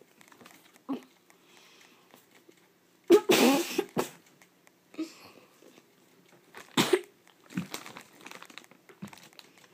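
Muffled huffs and cough-like sputters from a boy whose mouth is stuffed with marshmallows, in short sudden bursts, the loudest about three seconds in and another near seven seconds.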